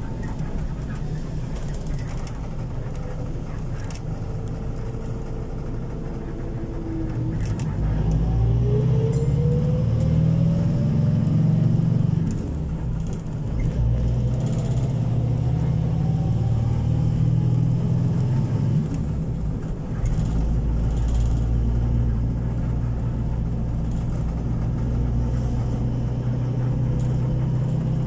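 Motor vehicle travelling along a road: steady engine and road noise from the vehicle carrying the camera. It gets louder about eight seconds in, and the engine pitch rises as it speeds up, then rises slowly again from about thirteen seconds.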